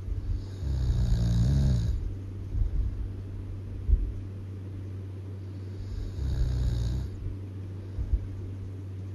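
Loud human snoring: two long snores about five seconds apart, each a low rumble with a breathy hiss. Short sharp clicks fall between them, the sharpest about four seconds in, over a steady low hum.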